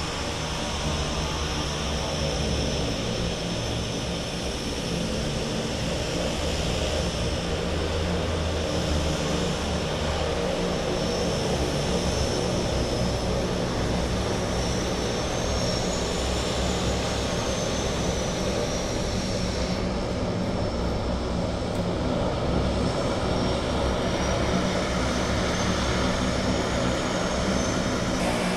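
Floatplane turboprop engines running: a steady drone with a high whine that rises and falls in pitch twice, once around the middle and once near the end.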